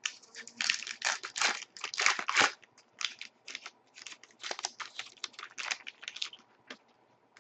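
Foil wrapper of a hockey card pack crinkling and tearing as it is opened and handled, a rapid run of short rustles that stops near the end.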